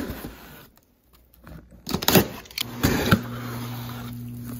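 Cardboard subscription box being handled and its lid opened: a few short rustles and knocks about two and three seconds in, then a steady low hum.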